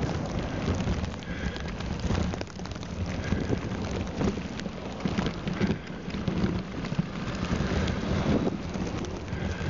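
Wind buffeting and a steady rough noise from a mountain bike being ridden through snow and slush, with a dense crackle of small clicks throughout.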